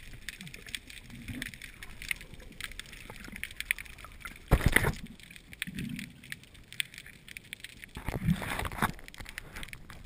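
Underwater sound picked up through a GoPro housing: a constant faint crackle of clicks with low gurgles of water, a loud short rushing burst about four and a half seconds in, and another cluster of louder knocks and rushes near the end.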